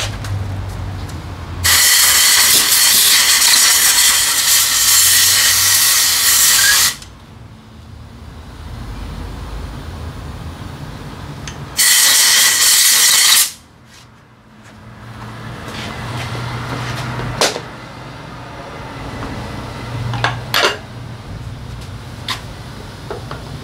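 Compressed air hissing from an air hose into a motorcycle tyre as it is inflated: one long burst of about five seconds, then a second burst of under two seconds. Each burst starts and stops abruptly, and a few light knocks follow as the wheel is handled.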